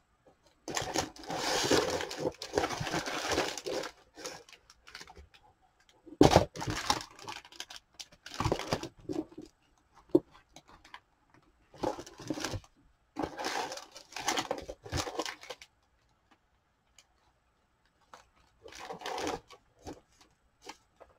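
Rummaging through a stash of rubber stamps: rustling and light clattering in four bursts of a few seconds each, with quiet pauses between and a sharp knock about six seconds in.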